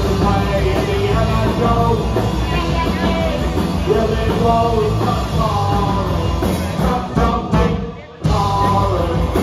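Punk rock band playing live, loud and continuous. About seven seconds in the music breaks into short stop-start hits, with a brief drop about eight seconds in.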